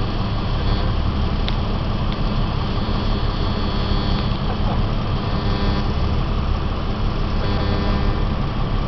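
A vehicle engine idling steadily, a continuous low rumble.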